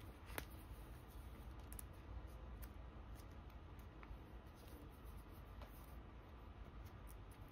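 Quiet handling of plastic: a photocard in a sleeve slid into a clear binder pocket page, giving a few faint clicks and rustles, the sharpest about half a second in, over a low steady rumble.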